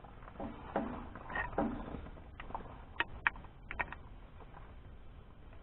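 Wrench work on a tractor hydraulic coupler fitting: a few soft knocks in the first two seconds, then several sharp metallic clicks about three to four seconds in as the fitting is tightened.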